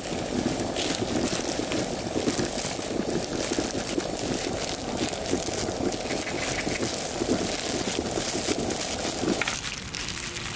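Running water, a steady rushing and gurgling that falls away about nine and a half seconds in.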